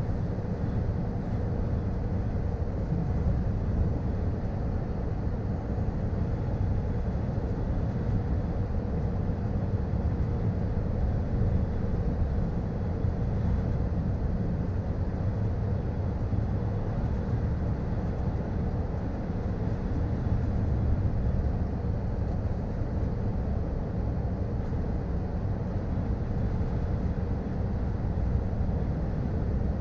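Scania R440 truck cruising on the road, heard inside the cab: a steady deep drone of the 13-litre straight-six diesel with tyre and road rumble, even throughout.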